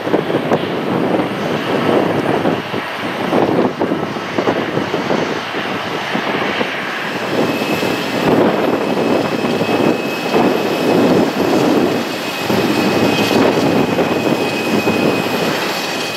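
Airbus A320 jet engines running at idle, a loud rushing noise that swells and fades unevenly, with a steady high whine joining about halfway through.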